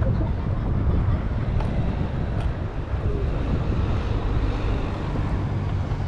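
Road traffic with wind buffeting the microphone, a steady low rumble; a vehicle engine's hum becomes more distinct in the second half.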